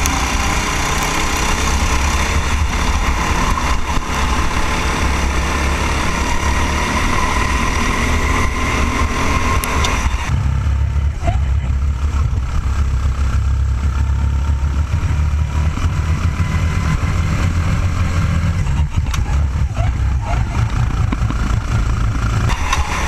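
Rental go-kart engines running hard among a pack of karts, heard on board the RT8 kart. About ten seconds in the sound turns duller, losing its upper range, while a low engine drone grows stronger.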